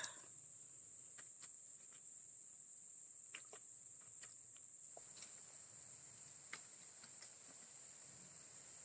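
Faint, steady, high-pitched insect drone, with a few faint scattered clicks about halfway through.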